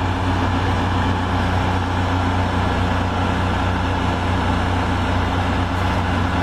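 REO military truck's engine running steadily under load, a low even drone, as it tows a truck stuck in the mud.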